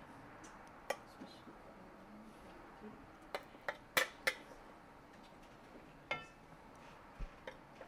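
A metal spoon clinking against a ceramic casserole dish as grated green banana dough is scooped out, giving scattered sharp clinks: a quick run of three or four about three to four seconds in, and one ringing clink about six seconds in.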